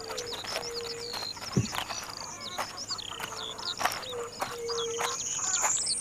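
Birds chirping in rapid short, repeated high calls, over a steady thin high-pitched tone, with a low pure tone sounding on and off. Near the end a whistle rises in pitch.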